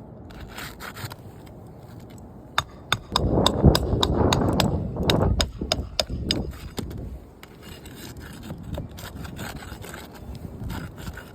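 Scraping and rubbing against asphalt roof shingles during shingle removal and replacement. A run of sharp clicks and taps comes with the loudest scraping in the middle, then lighter scraping.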